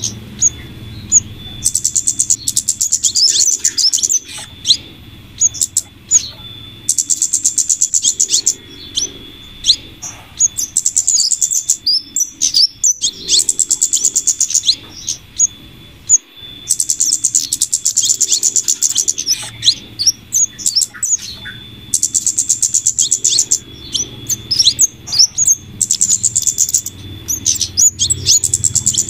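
Bird-lure recording of flowerpecker (kemade) calls combined with female scarlet minivet calls: a burst of rapid, very high-pitched ticking chatter repeats about every five seconds, with single sharp chirps in between.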